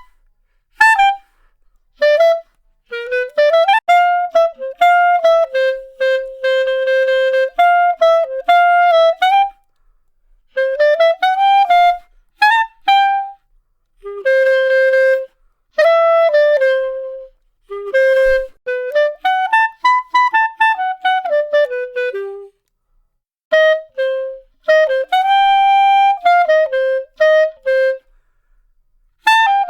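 Solo clarinet playing a melody in short phrases with brief pauses between them, and a run that climbs and falls back about two-thirds of the way through.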